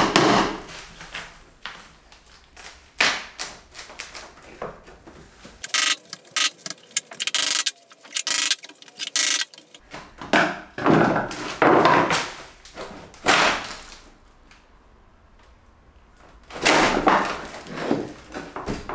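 Hammer striking a chisel to break a windowsill loose, in irregular knocks and clusters of blows with pauses between.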